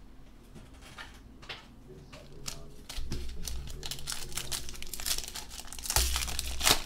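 Plastic foil wrapper of a football trading-card pack crinkling as it is handled, then ripped open about six seconds in, the loudest crackling of the stretch.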